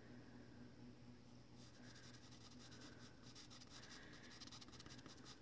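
Faint scratching of a No. 2 graphite pencil shading on paper in rapid short strokes, growing busier about a second and a half in.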